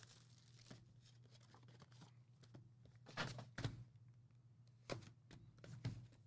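Near silence with a low steady hum, broken by four faint thunks in the second half as a box of trading-card packs is handled on a table.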